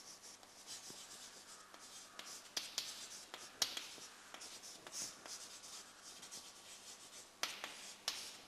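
Chalk writing on a chalkboard: faint scratching strokes with a few sharp taps as words are written.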